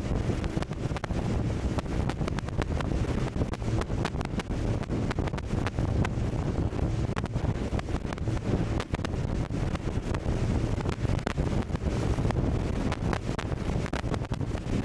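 Wind buffeting the microphone aboard a moving speedboat, with a steady low rush from the boat underneath and frequent crackling gusts.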